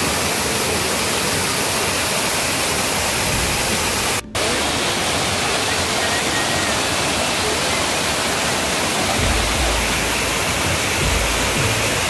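Small rocky waterfall cascading over granite slabs into a shallow pool: a steady, full rush of falling water. It cuts out for an instant about four seconds in, and a low rumble joins it from about nine seconds on.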